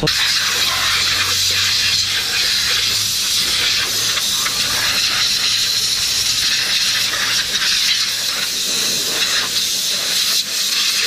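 Compressed air blowing from an air-gun nozzle, a loud steady hiss of air drying off a freshly washed motorcycle.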